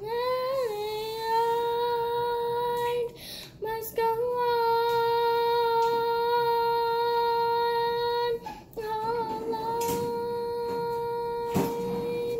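A young girl singing without accompaniment, holding three long notes on nearly the same pitch, each lasting three to four seconds with a short break between them; the first begins with a slight upward scoop.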